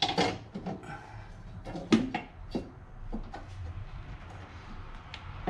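A strut tower bar being handled and set down over the engine for a test fit: a series of short knocks and clunks of metal parts, the loudest about two seconds in.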